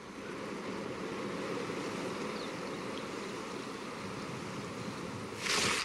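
River water rushing steadily, with a short louder burst of noise near the end.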